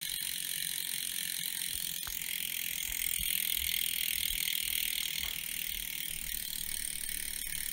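Bicycle rear hub freewheel ticking so fast that it runs together into a steady, even buzz as the wheel coasts.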